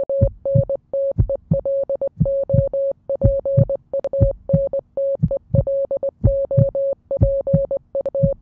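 Electronic intro music: a synthesizer note repeated in short stuttering pulses on one pitch over a low thumping beat about twice a second.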